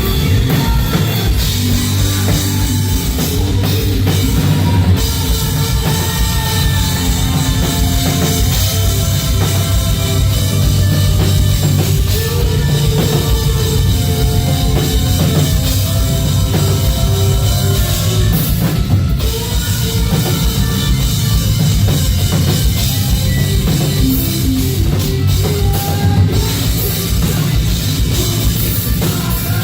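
Live rock band playing loud and steady, with a heavy drum kit under the guitars.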